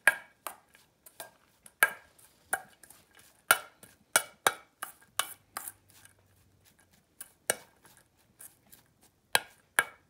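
Metal spoon stirring sliced scallions and minced ginger in a stainless steel mixing bowl: irregular clinks and scrapes of the spoon against the bowl, some followed by a short ring from the bowl.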